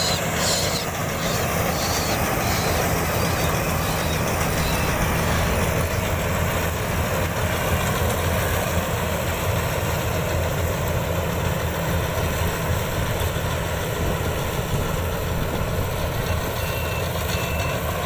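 Iseki rice combine harvester running steadily, its diesel engine and threshing gear making a constant low drone. Near the end its warning beeper starts, a short high beep about twice a second.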